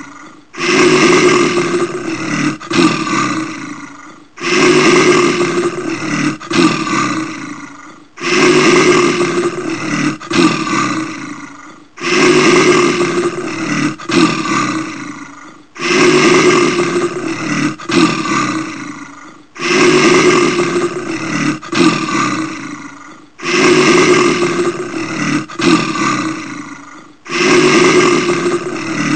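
Brown bear roaring: the same rough roar repeats about every four seconds, each starting loudly and fading away before the next, like a looped recording.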